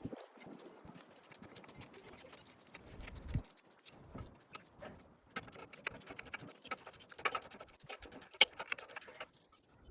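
Irregular light clicks and taps of tools and metal parts being handled during hands-on repair work, with a dull thump about three seconds in and a sharp click a little past eight seconds.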